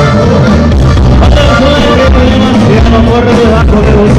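Live norteño band playing loud, with accordion, electric guitars, bass and a drum kit over a steady beat.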